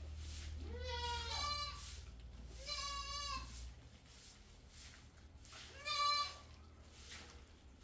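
Goats bleating, about four calls with a wavering pitch: two overlapping near the start, one around the middle and a short louder one near the end.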